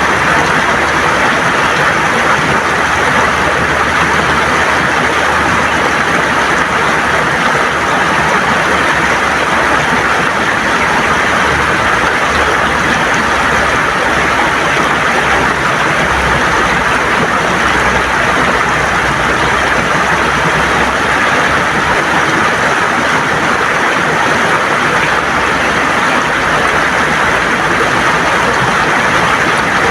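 River water gurgling and rushing over smooth stones, a loud, steady flow.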